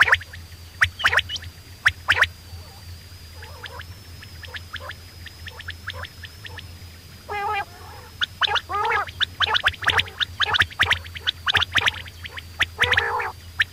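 Quail calling in bursts of short, rapid, gurgling notes, with quiet gaps between the bursts.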